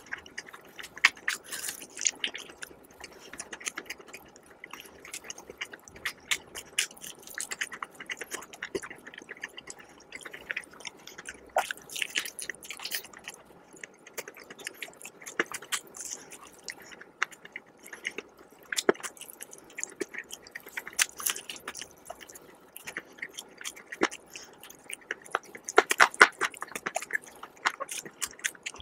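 Close-miked chewing and biting of crispy fried chicken: crackling crunches of the breading mixed with wet mouth sounds. The crunching comes in denser flurries about a second in, around halfway through, and again near the end.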